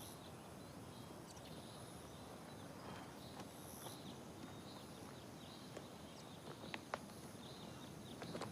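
Faint forest ambience, with scattered short high chirps and a few soft clicks, the sharpest a little before the end.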